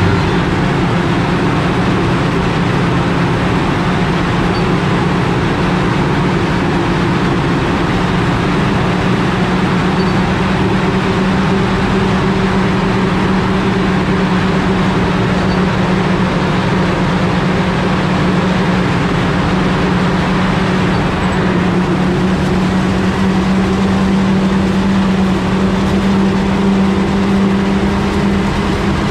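Heavy diesel farm machinery engine running steadily under load, its note holding at one pitch throughout.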